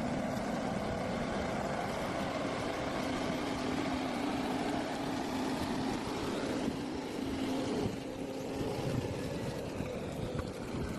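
Ponsse Elephant King forwarder's diesel engine running steadily under load, easing off about eight seconds in.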